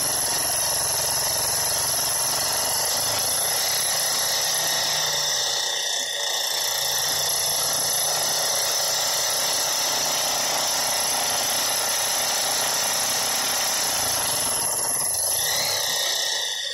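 Maktek KF 25L Vario bench milling machine face-milling with a single-insert fly cutter, making a steady, loud cutting noise over the motor's whine. The motor is struggling with this wide cut, which the owner puts down to it being too weak. The noise drops away just before the end.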